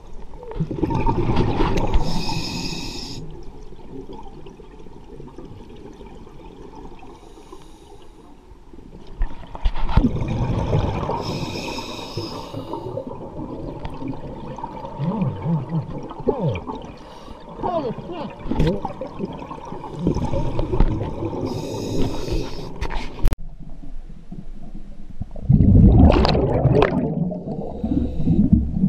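Scuba diver breathing underwater through a regulator: the hiss of each inhale, then a low rumbling rush of exhaled bubbles. The breaths come about every ten seconds.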